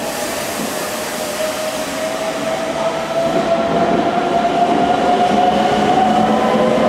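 Meitetsu 3500-series electric train pulling away from an underground platform, its motors whining as a set of tones that rise slowly in pitch while it gathers speed, growing louder over a steady rumble of wheels.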